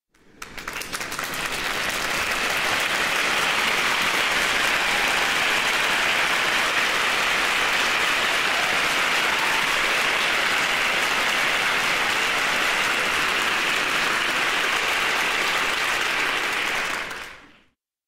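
Applause, building up over the first two seconds, holding steady, then dying away quickly about a second before the end.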